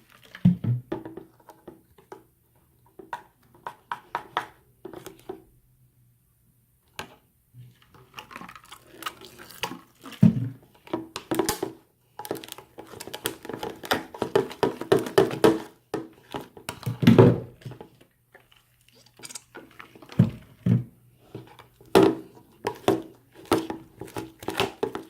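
Slime being mixed in a bowl just after borax activator is added: irregular clinks, scrapes and wet squelches, with a few louder thumps.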